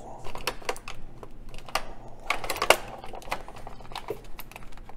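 Clear plastic blister packaging crackling and clicking in irregular bursts as it is handled and flexed to free an action figure.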